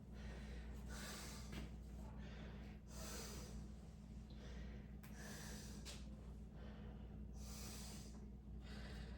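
A person breathing close to the microphone, soft breaths every second or two, over a steady low electrical hum.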